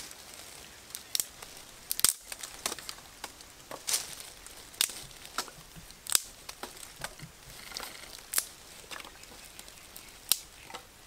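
Thin dry sticks being snapped by hand into kindling, a sharp crack roughly every second at irregular intervals, with light rustling of dry wood and leaves between the snaps.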